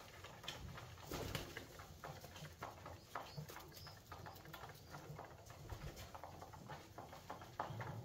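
Alföldi-Körösi tumbler pigeons cooing low, with many quick light taps scattered throughout as the birds peck at seed on a hard floor.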